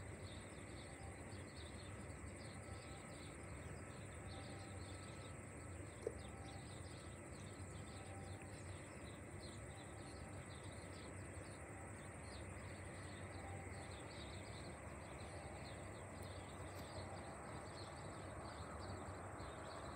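Insects chirping steadily in fast, dense pulses, over a faint low background hum. A single short click sounds about six seconds in.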